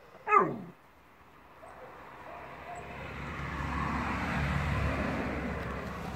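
A dog's single short yelp, sliding steeply down in pitch, followed by a rushing noise that swells over a few seconds and then fades.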